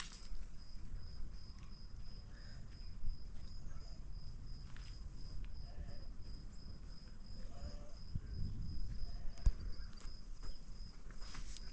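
A cricket chirping steadily in a high-pitched, even pulse about four times a second, over a low rumble with a few faint knocks.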